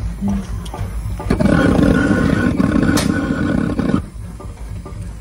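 A gas torch burning: after a softer hiss, about a second in it flares up loud and steady, drops back about four seconds in, with a sharp click in between. It is heating the hot plate of a Chicago Pneumatic two-stroke semi-diesel before starting.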